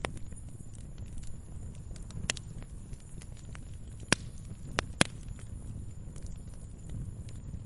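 Wood campfire crackling, with scattered small ticks and sharp pops about two, four and five seconds in, over a low steady rumble.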